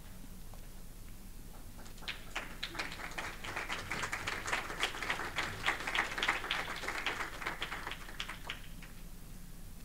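A group of people sitting down at tables: chairs pulled out and set down, with a scatter of irregular knocks, clatter and shuffling. It starts about two seconds in, is busiest in the middle and dies away near the end.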